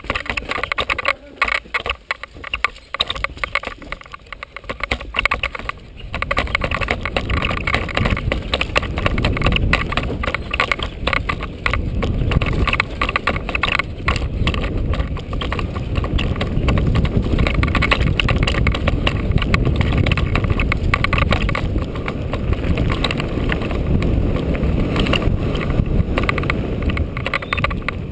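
Mountain bike descending a downhill dirt trail, recorded from a GoPro on the bike or rider: tyres rumbling over dirt and roots, the bike rattling and clattering with constant small knocks, and wind on the microphone. The low rumble thickens from about six seconds in as the speed picks up.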